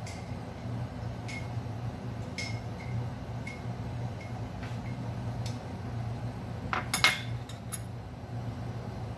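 Soup boiling in an uncovered pot on a lit gas burner. Scattered light clinks and ticks sound over a steady low hum, with a short run of louder clinks about seven seconds in.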